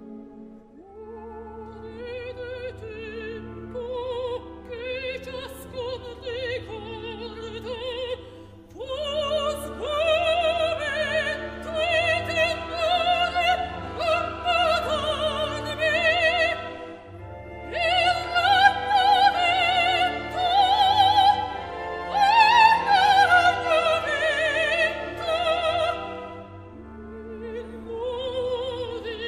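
Dramatic soprano singing an opera aria with wide vibrato over a sustained orchestral accompaniment, in long phrases that climb to loud, high held notes in the second half.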